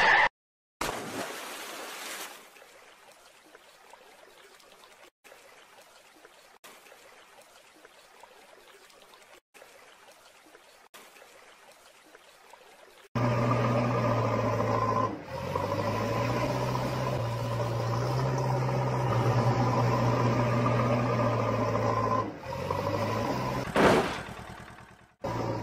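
A toy dump truck tips off a mud mound and splashes into a muddy puddle, followed by a long stretch of faint hiss. About halfway through, a steady engine drone starts and runs on, stepping slightly up and down in pitch a few times.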